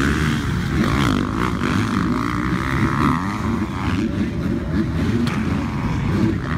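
Motocross dirt bike engines revving on the track, their pitch rising and falling as the bikes accelerate and back off through the jumps.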